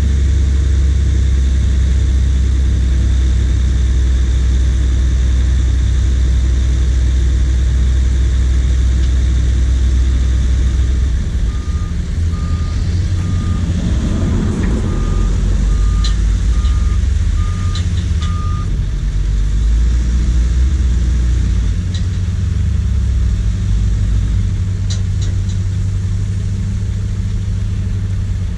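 Heavy diesel engines of tipper trucks running as they tip loads of earth, with a deep steady engine note. About a third of the way in, a reversing alarm beeps about twice a second for some seven seconds.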